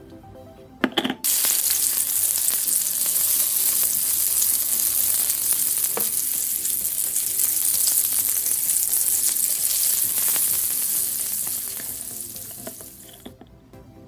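Dubbed-in sizzling sound effect of food frying on a hot grill, set over a toy egg cooking on a toy barbecue. It starts just after a couple of short plastic clicks about a second in, holds loud and steady, and fades out near the end.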